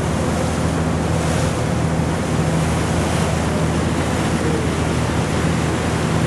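A small passenger ferry's engine running with a steady low hum, under a constant wash of wind and water noise.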